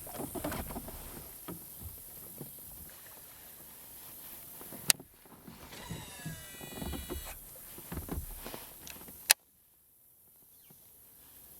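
Scattered knocks and rustling of gear being handled in a kayak, with two sharp clicks. After the second click it goes nearly silent.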